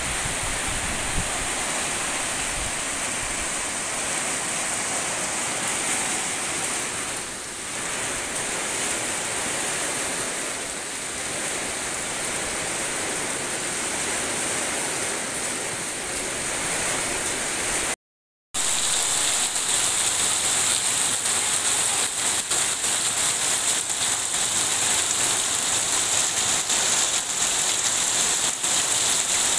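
Heavy rain falling, a steady hiss. About 18 seconds in it cuts out for a moment and comes back louder, with many separate drop hits close by.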